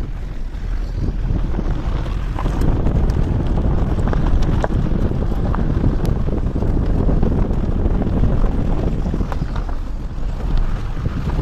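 A vehicle driving on a rough dirt track, recorded at an open side window: a steady rumble of wind buffeting the microphone and road noise, with scattered sharp clicks and knocks from stones and bumps under the wheels.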